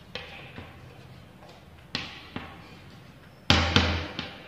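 Chalk tapping and scraping on a blackboard as a word is written: a few sharp taps, each with a short stroke after it. The loudest is a cluster of knocks with a dull thud about three and a half seconds in.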